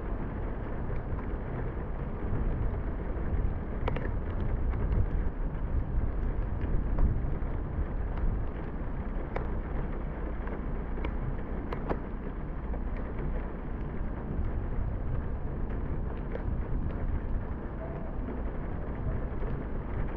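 A car driving through heavy rain: a steady low rumble of the vehicle and tyres on the wet road, under the hiss of rain, with scattered sharp ticks of drops striking.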